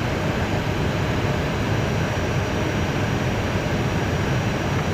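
Steady cockpit noise of an Airbus A320 in descent: a constant rush of airflow and engine noise, deepest in the low end, with no change through the stretch.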